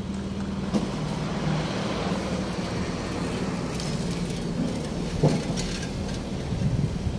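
City street traffic: a motor vehicle's engine running with a steady low hum over general road noise, with a couple of short knocks, one about a second in and one about five seconds in.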